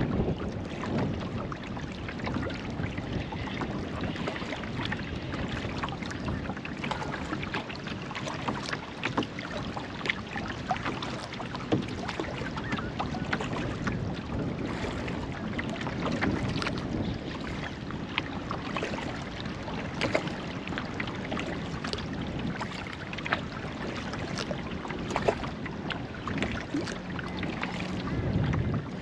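Kayak paddling on calm lake water: the paddle blades dip and pull through the water, with steady splashing, drips and small sharp water clicks and a few louder splashes.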